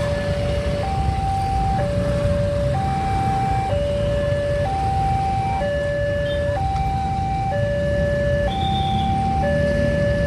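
Railway level-crossing warning siren sounding a two-tone alarm, alternating between a higher and a lower note about once a second each, the signal that the crossing barrier is closing for an approaching train. A steady low rumble runs underneath.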